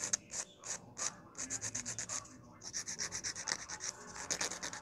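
Hand nail file rasping in quick back-and-forth strokes across the tip of an acrylic nail, shaping it into an almond shape. The strokes break off briefly a little over two seconds in.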